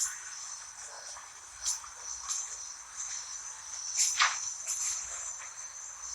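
Crickets chirring steadily in a high-pitched, unbroken drone, with a few short rustles and knocks from bags and belongings being handled, the loudest of them about four seconds in.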